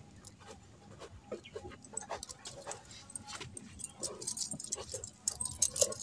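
Bangles on a milker's wrists clinking and jingling as her hands work a cow's teats in hand milking, with scattered soft clicks at first and a louder, busier jingle from about four seconds in.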